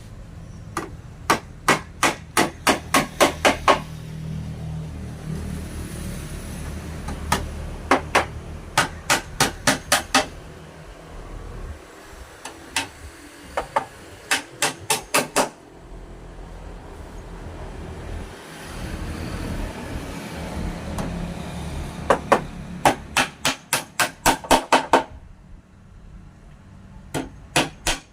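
Hammer blows on wood, in five bursts of six to ten quick, evenly spaced strikes, about three or four a second, with short pauses between bursts.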